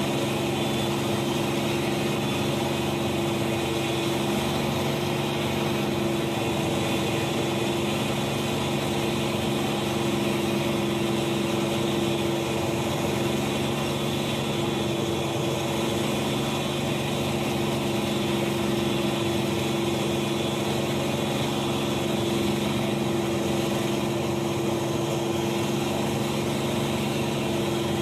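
A steady engine-like drone with a constant hum, holding the same pitch and level throughout.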